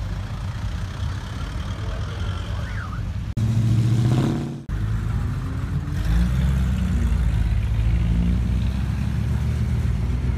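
Car engines running: a steady low rumble, then a loud burst of engine sound about three seconds in that starts and stops abruptly, and a deeper, wavering engine rumble picking up about six seconds in.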